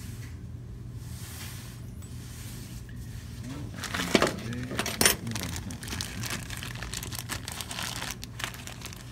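Clothing rustling against the recording phone over a steady low hum, with two sharp knocks about a second apart near the middle.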